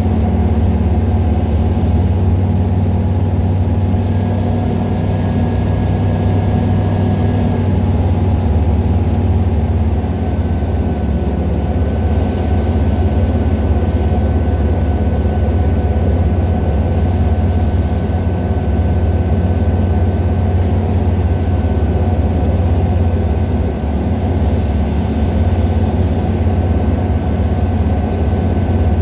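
Czech Sport Aircraft PS-28 Cruiser's Rotax 912 four-cylinder engine and propeller running steadily in flight. A constant low drone, heard from inside the cockpit.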